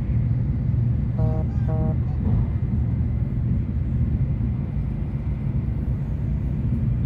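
Steady low rumble of a Shinkansen train running at speed, heard from inside the passenger cabin. Two short tones sound about a second in.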